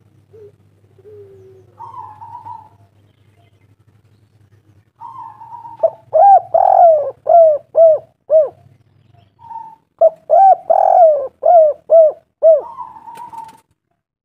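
Spotted dove (tekukur) cooing: a soft opening note, then two runs of loud, rapid, repeated cooing notes, about two or three a second, each run framed by a longer higher note.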